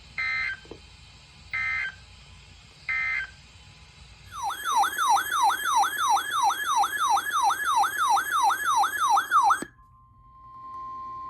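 Emergency Alert System header: three short bursts of warbling digital data tones, then a loud siren-like attention tone of rapid rising sweeps, about three a second, for about five seconds. It signals that a new severe thunderstorm warning is about to be read. After a brief pause a steady single tone begins near the end.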